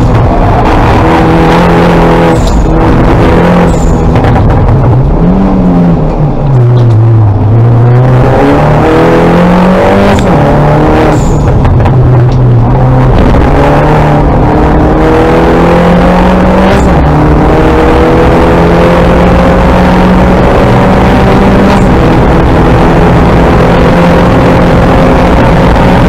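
Race-prepared Mini John Cooper Works Coupe's turbocharged four-cylinder engine heard loud from inside the cabin at racing speed, its pitch climbing and dropping back in steps as it shifts up through the gears. Around six to eight seconds in, the revs fall low as the car slows for a corner, then climb again, ending in one long steady rise in pitch.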